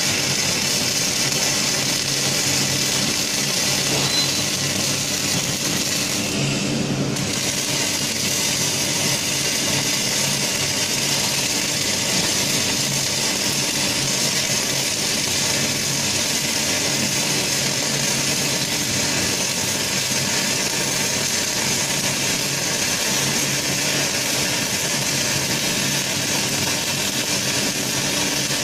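Wire-fed (MIG/MAG) welding arc from a six-axis welding robot, a steady loud hiss over a low hum, dropping out briefly about six and a half seconds in.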